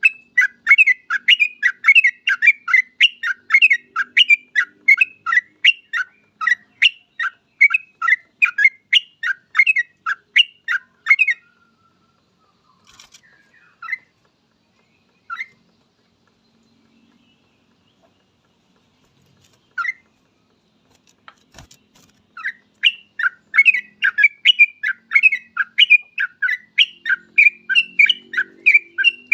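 Yellow-vented bulbul (cucak trucuk) singing in long, rapid runs of short chirping notes, about three a second. The song breaks off a little over ten seconds in for a few scattered notes, then starts again in another fast run near the end.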